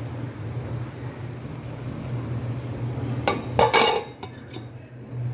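A stainless steel pot lid clanks and rings against the wok's rim in a short cluster of knocks about three and a half seconds in, followed by a few lighter clicks, over a steady low hum.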